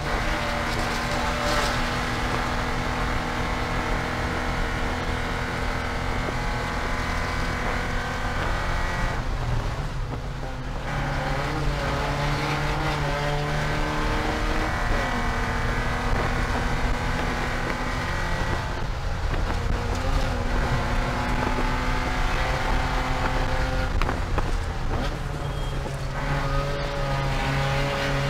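Porsche 944 Spec race car's four-cylinder engine running hard at racing speed, its note holding steady through long pulls. It dips and bends twice, about a third and two-thirds of the way through, as the car lifts, brakes and changes gear.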